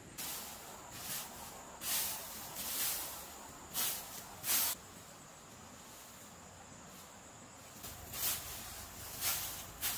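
Dry cut grass rustling and swishing as it is raked together and gathered up by hand, in a run of short crackly swishes: about five in the first half, a pause, then three more near the end.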